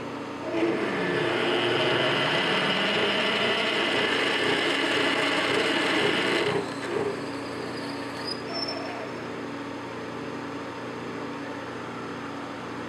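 Half-inch high-speed-steel drill bit cutting into a spinning 316L stainless steel ring blank on a lathe, making a harsh, steady grinding with held tones. It starts about half a second in and stops at about six and a half seconds as the feed is backed off. The lathe then runs on more quietly.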